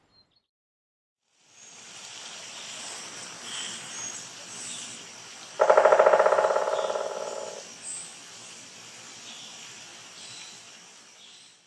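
Woodpecker drumming: one fast, even roll of knocks on wood about halfway through, loud at first and fading over about two seconds. Under it is faint outdoor ambience with a few distant high bird calls.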